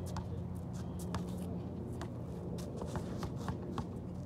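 Faint footsteps and shoe scuffs of basketball players on a hard outdoor court, scattered light clicks over a steady low hum that stops about two and a half seconds in.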